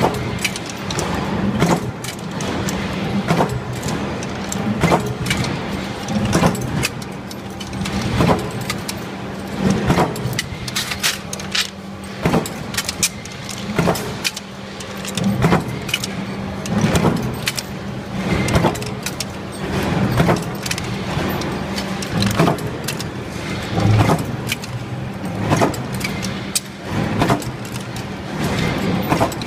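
Induction heating and forging line for steel tool blanks running: a steady low machine hum with a sharp metallic clank about every one and a half seconds as the line cycles, indexing the red-hot blanks through the heating coil toward the forging press.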